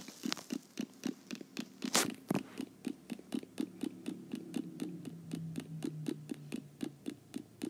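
A steady series of short clicks, about five a second, over a faint low hum, cutting off suddenly at the end.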